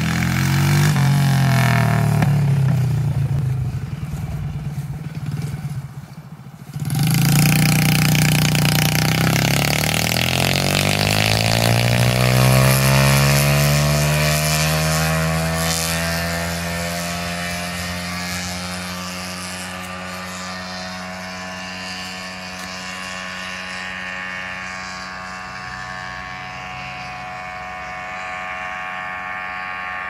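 Straight-piped go-kart engine running loud, revving up in the first seconds and dropping away briefly around six seconds. It comes back on hard near seven seconds, then its pitch slides slowly down over about ten seconds as it gets quieter, settling into a steady lower drone.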